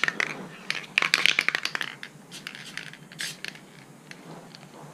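Aerosol spray-paint can in use: clicking and rattling as the can is handled, with a hissing spray, then two brief spray hisses a little past the middle.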